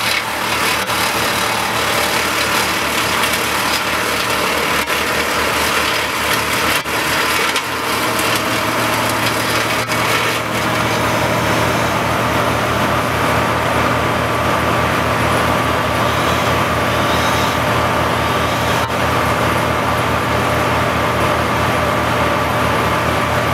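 A small engine running steadily at a constant speed, with its low note settling and holding even about ten seconds in.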